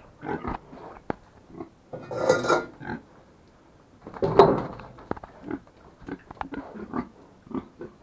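Fattening pigs grunting in their pen, with two louder calls about two and four seconds in, among short knocks and clatter.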